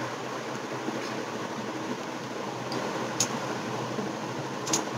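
Steady room hum, like a running fan, with two short soft clicks, about three seconds in and near the end, as a small knife spreads ketchup on a burger.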